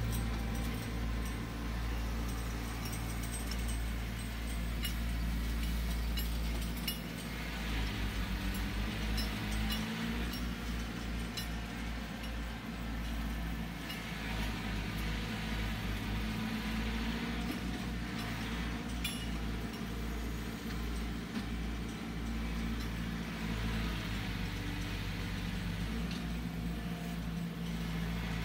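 A compact tractor's engine running as it drives across the yard, with its engine speed swelling and easing a few times. Faint clicks come through over it.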